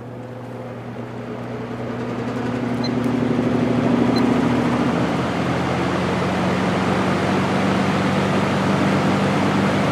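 Early-1960s GE F15W13 box fan spinning up to high speed: the rush of air grows louder over about four seconds, then holds steady over a low motor hum.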